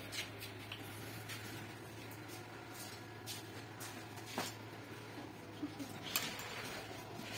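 Bossweld 230-amp inverter welder switched on and idling, its cooling fan running with a low, steady hum. A few faint knocks come through.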